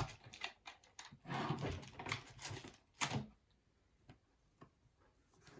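Steel tweezers working at the small metal shield over an iPhone 5c's battery connector: a stretch of faint scraping, then a sharp click about three seconds in and a few light ticks.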